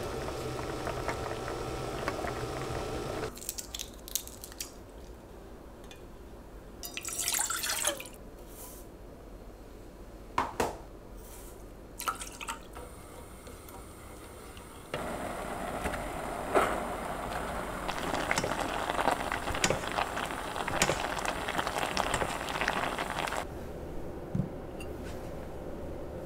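Kitchen cooking sounds: a wooden spoon stirring a pot of boiling liquid, a few spoon clicks and a short pour in a quieter stretch, then from about fifteen seconds a chilli-paste sauce bubbling in a saucepan as it is stirred, with light clicks of the spatula on the pan.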